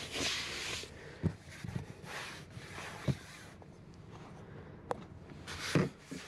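Camera handling noise: the camera rubbing and scraping against car-seat upholstery in several short swells, with a few dull knocks and one sharp click as it is repositioned and fixed in place.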